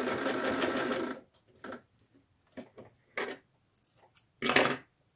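Domestic electric sewing machine stitching patchwork with a fast, even stitch rhythm, stopping about a second in. A few short rustles follow as the sewn fabric is handled, the loudest near the end.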